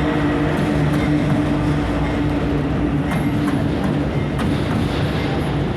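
Train passing at close range: a steady heavy rumble with a humming tone that fades about three seconds in, then wheels clicking over rail joints.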